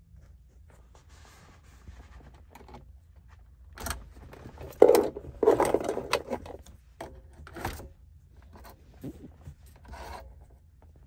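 Rubbing and scraping handling noise with a few sharp clicks, loudest from about five to six and a half seconds in.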